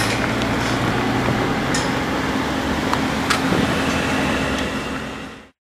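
Car driving, its engine hum and road noise heard from inside the cabin, with a few light clicks. The sound stops abruptly near the end.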